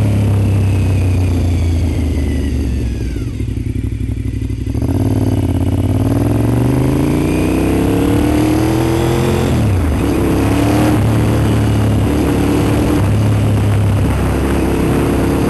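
Honda RC51's V-twin engine heard from the bike while riding. Its note falls and quietens as the throttle closes about two seconds in, then climbs steadily under acceleration from about five seconds. It drops sharply at a gear change near ten seconds and runs steady after that.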